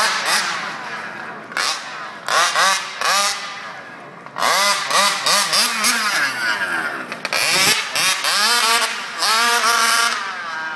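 Custom Bizeta BZM Micro 40cc two-stroke engine in a large-scale RC truck, revving in repeated bursts of throttle. The pitch climbs with each burst and falls away between them as the truck is driven.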